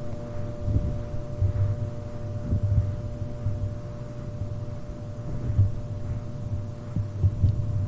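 Steady electrical hum from overhead fluorescent lights, with irregular low, muffled thuds of footsteps on carpet underneath.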